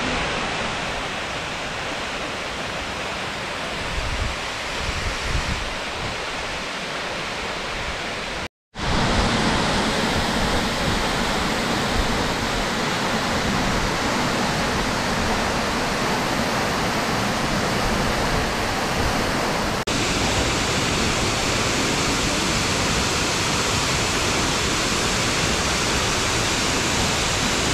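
Partly ice-bound mountain waterfall, a steady rush of falling water. After a brief cut about eight seconds in it is louder and closer, pouring into its plunge pool.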